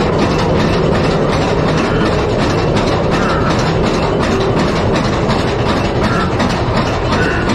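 Calico Mine Train ore cars running on their steel track, a loud steady rumble with a rapid, continuous clatter of wheels and track.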